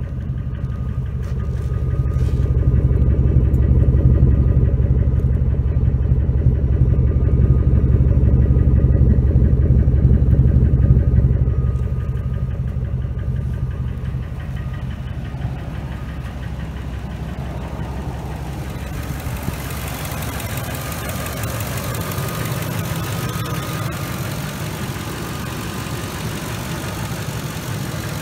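2003 Ford Expedition's 5.4-litre two-valve V8 idling steadily through a cat-back exhaust with a single-chamber free-flow muffler. The deep exhaust rumble is loudest for the first dozen seconds, then fades, giving way to more engine-bay hiss in the last third.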